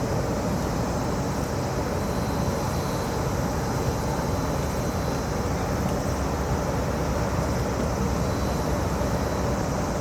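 Steady, unbroken low drone of a moored warship's gas-turbine machinery running as the ship readies to leave port.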